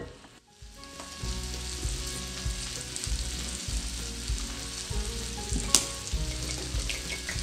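A whisk and spatula stirring a moist onion-and-leek mixture in a mixing bowl: a steady, crackly, sizzle-like stirring noise. There is one sharp clink of a utensil against the bowl about three-quarters of the way through.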